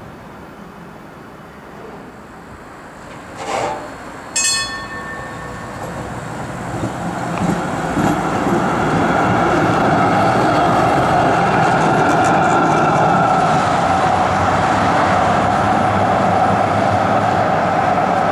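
Vienna Type E2 articulated tram with its c5 trailer pulling away and passing close by, its wheels running on the rails with a steady whine, building up from about six seconds in and staying loud. A short ringing tone sounds about four and a half seconds in.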